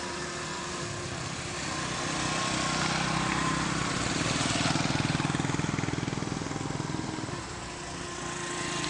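Small motorbike engine passing close by. The engine note grows louder, is loudest about halfway through, then fades as the bike rides away, and the next bike comes in near the end.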